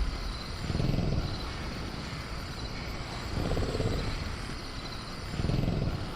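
Night jungle ambience from a sound-effects track: three low rumbling swells, like distant deep dinosaur growls, rise and fade over a faint steady chirr of crickets.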